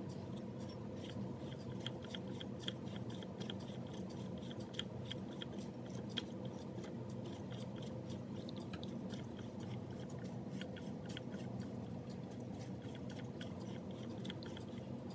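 Old Singer Model 15 sewing machine mechanism being turned over, its rusty parts giving irregular small clicks and scrapes over a steady low hum: the machine, once stuck, moving again.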